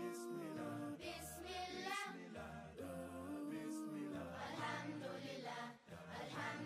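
Background music: an English-language nasheed sung by voices in harmony without instruments, with a low sung bass part under the melody.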